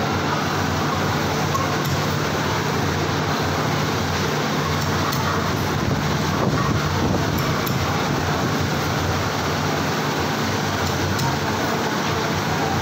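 Steady hum and rushing noise of running machinery in a workshop, with a few faint ticks.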